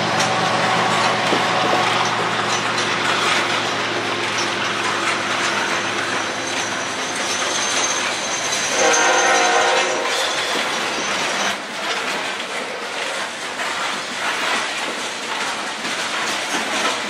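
A train passing on the line, with a steady noise of wheels on rail throughout and a short horn blast about nine seconds in.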